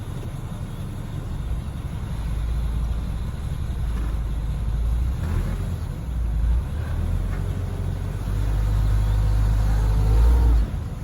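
A motor vehicle's engine running at low speed with a deep, steady rumble. It grows louder through the second half, then drops off sharply near the end.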